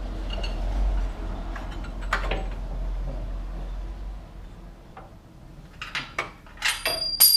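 Metal clanking and rattling as a steel suspension control arm and its bolt are worked free from a truck's front suspension, ending in a sharp clank with a ringing metallic tone. A low rumble fills the first few seconds.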